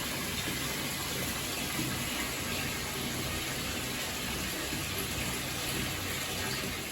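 Steady rushing water: an even, unbroken hiss with no surges or breaks.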